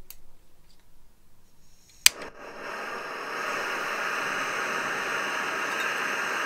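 Fire Maple Fixed Star X2 canister gas stove being lit: a sharp ignition click about two seconds in, then the burner catches and settles into a loud, steady, jet-like rushing of the gas flame.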